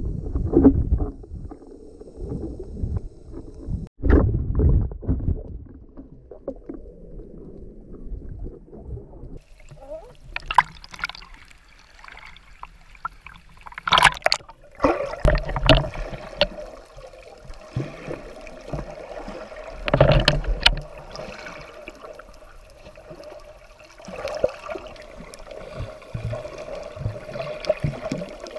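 Water sounds picked up by an action camera while snorkelling: dull underwater thumps and bubbling, then from about nine seconds in the sloshing and splashing of water at the surface, with loud splashes twice.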